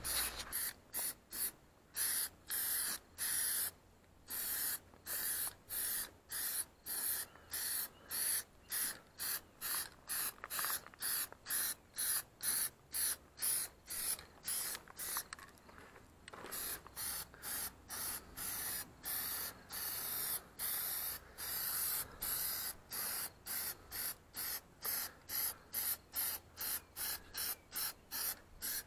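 Aerosol can of Plasti Dip rubber coating spraying onto a car wheel in short hissing bursts, nearly two a second, with a short break a little over halfway, as a coat is laid on.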